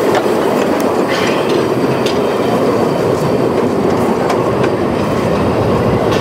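750 mm narrow-gauge passenger carriages rolling slowly past close by: a steady rumble of wheels on rail with a sharp clack about once a second as the wheels cross rail joints.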